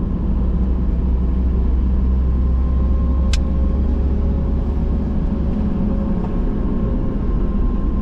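Steady low rumble of engine and road noise heard inside the cabin of a moving camper, with a single short click about three seconds in.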